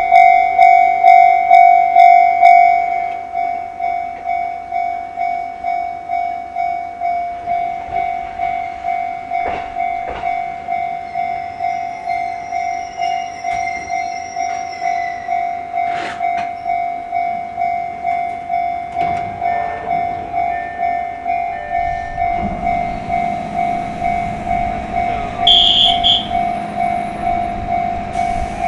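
Japanese level-crossing warning bell ringing steadily at about two strokes a second, louder for the first three seconds, then quieter. From about 22 seconds in a train's rumble grows under it, and a brief high-pitched toot sounds about 25 seconds in.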